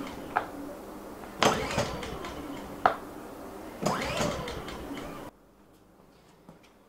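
Two pulls on the recoil starter cord of a Ryobi 1600/2000-watt four-stroke inverter generator, about a second and a half and about four seconds in. Each pull gives a quick rattling whir as the engine turns over, but the engine does not catch. The sound cuts off abruptly about five seconds in.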